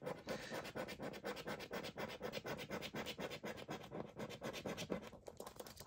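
Scratch-off coating on a lottery scratchcard being rubbed away in quick repeated strokes, a faint steady scraping.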